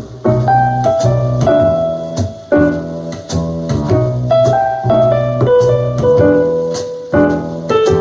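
Piano-led instrumental music with a bass line and a steady beat, playing from a Sonos Play:3 wireless speaker.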